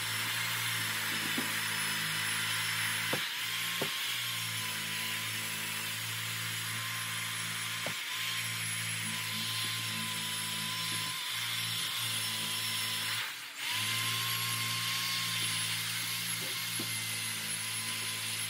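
Corded electric drill spinning a wire wheel brush against a rusty steel maul head to strip the rust: a steady motor whine with a harsh scraping hiss. The drill stops for a moment about two-thirds of the way through, then starts again.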